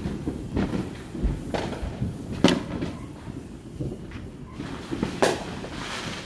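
Distant fireworks and firecrackers banging at irregular intervals, five or so bangs with the loudest about two and a half seconds in, over a steady low rumble.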